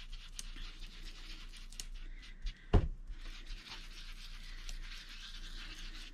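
Foam ink dauber rubbed along the edges of a paper envelope, a soft steady rubbing with short scrapes, and one sharp knock a little under three seconds in.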